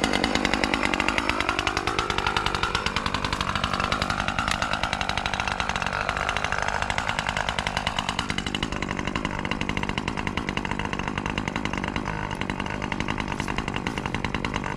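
Husqvarna 540 XP Mk III chainsaw's two-stroke engine idling steadily, its pitch wandering a little over the first several seconds. It is a brand-new saw on its first start, warming up with its autotune not yet set.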